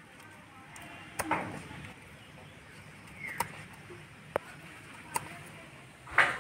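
Kitchen knife slicing young ash gourd into pieces over a stainless steel bowl, giving a few sharp, irregularly spaced clicks and knocks as the blade and the cut pieces meet the bowl. The loudest comes near the end.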